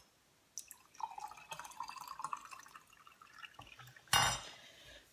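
Green tea poured from a glass jug into a drinking glass: a thin trickling pour lasting about three seconds. About four seconds in there is a single loud knock.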